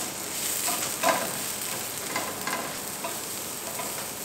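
Onions and ginger strips sizzling in oil in a non-stick frying pan over high heat, stirred with a silicone spatula that scrapes and pushes them around the pan in short, irregular strokes.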